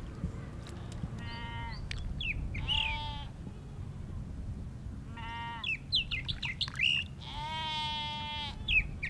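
A goat bleating four times, the last call the longest, stuck in the mud at the edge of a water hole and too weak to climb out. Short high chirps sound between the bleats.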